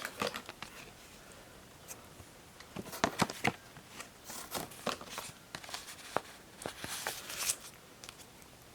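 Packaging and paper inserts in the product box being handled: scattered light clicks, taps and rustles, starting about three seconds in and busiest near the middle and near the end.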